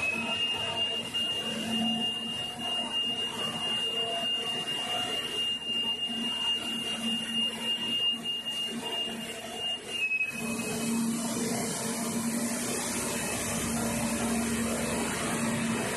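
Rock wool production line machinery running: a steady mechanical noise with a continuous high-pitched whine that drops slightly in pitch about ten seconds in, over a low hum.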